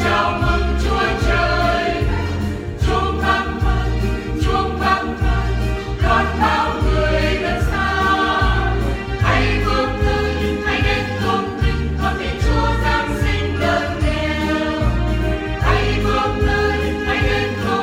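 Vietnamese church choir singing a hymn over instrumental accompaniment with a steady, strongly pulsing bass beat.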